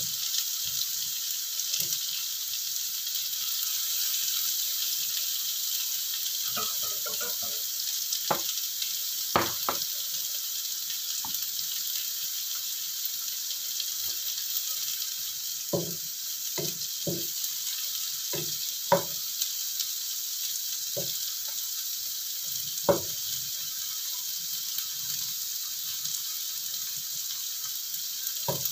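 Oil sizzling steadily in a wok as cubed tempe, eggplant, dried anchovies and spices fry until fragrant. Scattered short knocks of a wooden spatula against the wok come in as the food is stirred.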